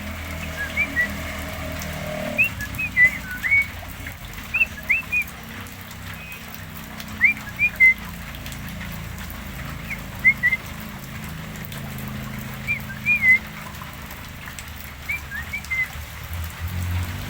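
Javan myna giving short whistled chirps, in little clusters of two or three quick notes every second or two, over a low steady hum.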